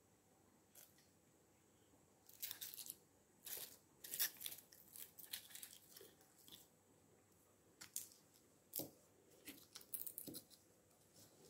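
Dry papery garlic skins crackling and tearing as the cloves and bulbs are handled and picked apart by hand, in irregular bursts starting about two seconds in.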